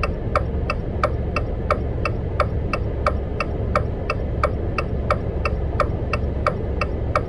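A car's turn-signal indicator ticking steadily, about two to three ticks a second, over the low hum of the engine and road inside the cabin.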